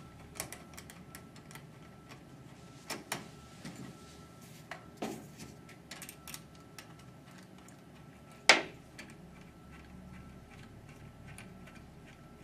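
Scattered small clicks and light metallic clatter of a Phillips screwdriver driving screws and hands handling the metal frame and wheels of a LightRail 3.5 light-mover trolley, as new trolley wheels are screwed on. One sharper, louder click comes about eight and a half seconds in.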